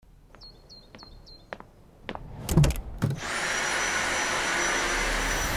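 Dyson V8 Animal cordless stick vacuum: a few clicks and knocks, the loudest about two and a half seconds in, then the motor switches on about three seconds in and runs steadily with a thin high whine over its rushing suction.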